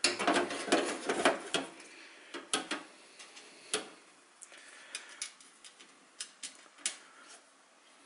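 Clicks and light knocks of a 3.5-inch hard drive being handled and slid into the steel drive bay of a Dell XPS desktop case: a quick cluster in the first two seconds, then scattered single clicks.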